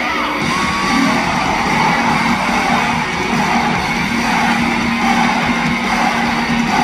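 Live pop-rock band music, loud and dense, with guitar prominent in the mix.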